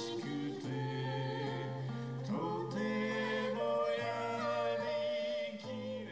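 A man singing a slow folk song to acoustic guitar, in long held notes with a slight waver.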